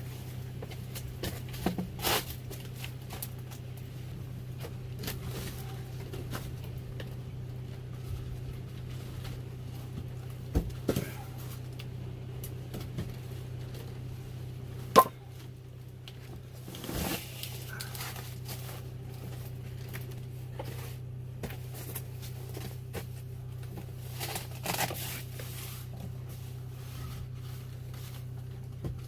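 Firewood being handled and stacked: scattered knocks and scrapes of split logs, with one sharp knock about halfway through, over a steady low hum.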